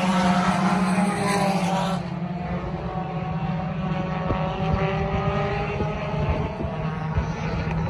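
Several dirt-track race car engines running hard, loud as two cars pass close by at the start. About two seconds in the sound drops away as they move off, leaving fainter engines droning on around the far side of the oval.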